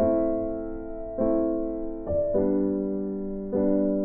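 Background music: slow, soft piano chords, a new chord struck about every second and each ringing out and fading before the next.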